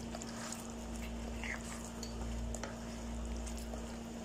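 Wooden spatula stirring a thick sauce with diced potatoes and corn in a nonstick frying pan: soft scraping and squelching with a few faint clicks, over a steady low hum.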